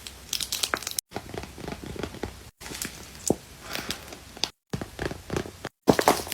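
Paper and tape crinkling and rustling in irregular bursts as handmade paper squishies are squeezed and handled, cut off by several sudden brief silences.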